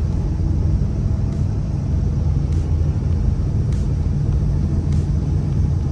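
Steady low road and engine rumble heard from inside a vehicle's cabin while driving on an icy highway, with faint ticks about every second and a quarter.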